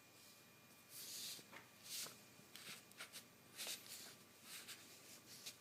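Faint rustling and scratching of paper as a cat's paw swipes at a stack of printed sheets, in several short brushes.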